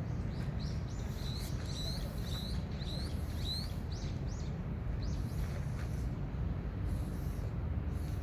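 A bird singing a quick run of short, high chirps, about two a second, that fades after about four seconds, over a steady low rumble of background noise.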